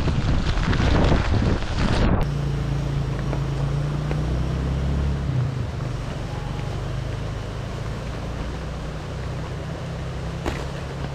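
Wind buffeting the microphone of a bicycle-mounted camera while riding in the rain. It stops abruptly about two seconds in, and a steady low hum with faint hiss follows.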